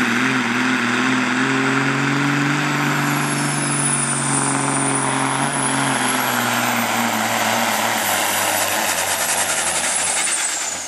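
Altered stock semi truck's diesel engine running at full throttle under heavy load as it drags a pulling sled, with black smoke from the stacks. The engine note holds steady, then its low tone fades a little past halfway.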